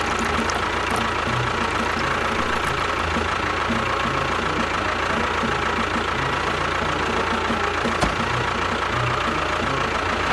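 An engine running steadily at an even pace, with one sharp click about eight seconds in.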